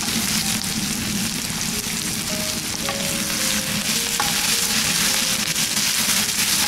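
Sliced onion, garlic, black olives and capers sizzling steadily in hot oil in a frying pan, stirred with a wooden spoon partway through.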